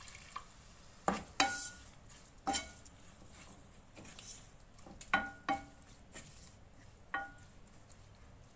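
A spoon stirring grated bottle gourd and milk in a pan, knocking against the pan about seven times with short ringing clinks, over a faint sizzle from the pan.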